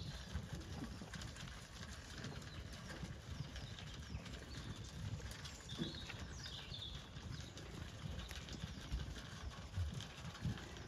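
Zwartbles ewes and a small dog munching sheep feed from a metal trough: a stream of small crunches and clicks, with a few dull knocks and some short high chirps.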